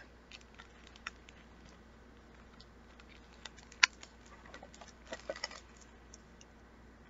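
Hardcover book being handled and opened: faint rustles and light clicks of the cover and pages, with one sharper tap a little before four seconds in and a short cluster of rustling about five seconds in.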